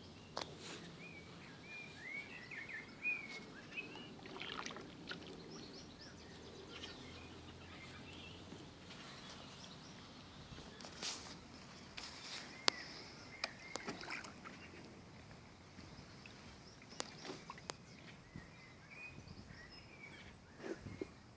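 Kayak paddling on a quiet river: scattered knocks and small splashes from the paddle, with small birds chirping repeatedly.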